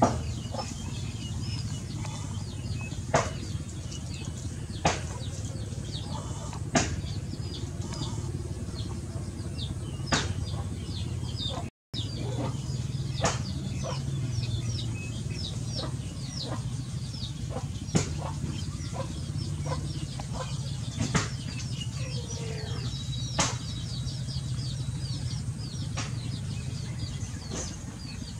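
Birds chirping busily, many short high chirps in quick succession over a steady low hum, with a few sharp clicks. The sound drops out for a moment a little before halfway through.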